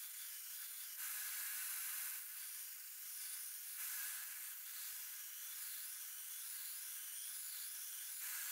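Belt grinder's abrasive belt grinding a damascus steel knife blade: a faint, steady hiss with no low rumble, changing in tone a few times.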